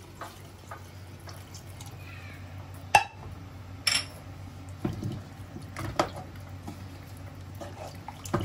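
Thin coconut milk being poured from a small saucepan into an aluminium pressure cooker of chicken and vegetables, then stirred with a spatula. A few sharp clinks of the utensils against the pot, the loudest about three and four seconds in.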